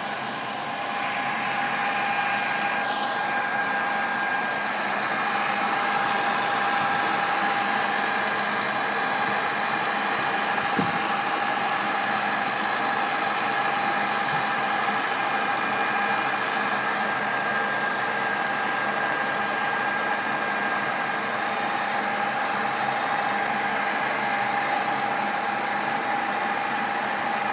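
Deckel FP2NC CNC milling machine running steadily, a constant mechanical whine over a hiss of running noise, stepping up in loudness about a second in.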